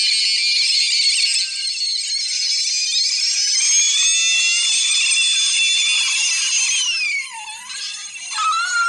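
Sped-up cartoon soundtrack pitched very high: shrill, squealing cries that glide up and down. A sharp falling glide comes about seven seconds in.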